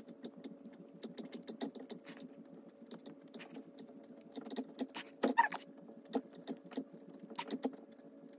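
Sped-up time-lapse audio of a person doing push-ups on carpet: a fast, irregular patter of small clicks and pats over a steady hum.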